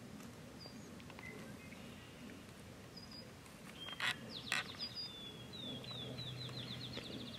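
Small songbirds calling: scattered high chirps, then a fast trill of about fifteen quick downslurred notes through the second half. Two sharp clicks come a little after four seconds in.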